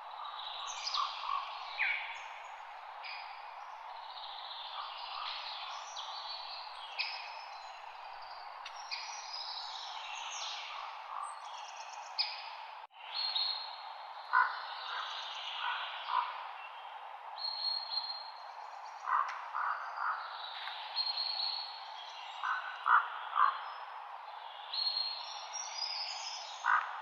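Several songbirds chirping and trilling, with high quick calls and short runs of lower repeated notes, over a steady hiss of light wind in forest leaves. The sound drops out for an instant about halfway through.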